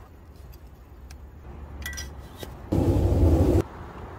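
Light plastic clicks as a clamp-on bottle holder is snapped onto a camping chair's metal leg. About three seconds in comes a loud rushing noise that lasts about a second and starts and stops abruptly.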